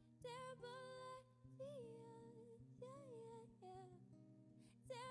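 A woman singing a wordless melody in a string of held notes, some sliding down at the end, over a softly played acoustic guitar.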